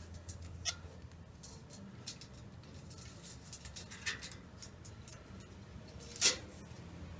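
Light metallic clicks and clinks of small parts and hand tools being handled, a few at a time, with one sharper knock about six seconds in.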